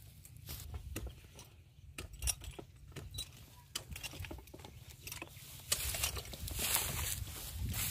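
Metal jangling and scattered clicks from a lineman's climbing belt hardware and pole climbers as he works his way up a wooden utility pole, over a steady low rumble of wind on the microphone that grows louder near the end.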